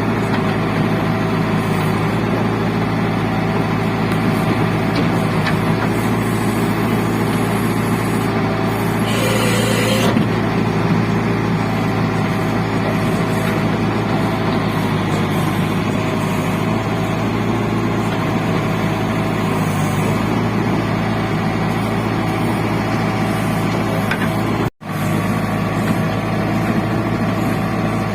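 JCB 3DX backhoe loader's diesel engine running steadily as the machine works, with a brief hiss about nine seconds in. The sound cuts out for an instant about three seconds before the end.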